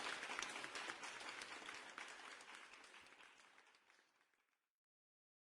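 Applause, a dense patter of clapping, fading out over about three seconds into dead silence.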